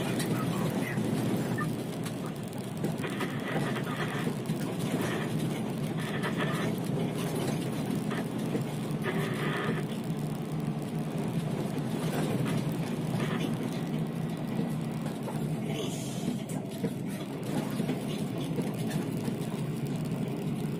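Scania P360 dump truck driving on a dirt road, heard from inside the cab: a steady, low engine and drivetrain drone with road noise, and brief patches of higher-pitched rattle or hiss every few seconds.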